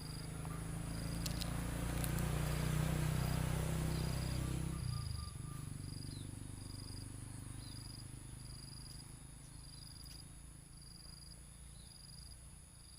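Insects chirping with short, high, regular calls about once a second, over a low steady hum that swells and then cuts off about five seconds in.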